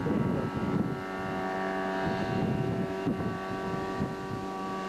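Nissan car engine of a waterjet-driven boat running at a steady, unchanging pitch. It is louder and rougher for about the first second, then settles into an even tone.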